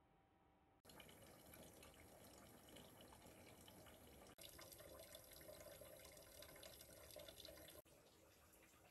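Faint water sounds: a low hiss of running or dripping water that starts abruptly about a second in, breaks off for a moment near the middle and drops quieter near the end.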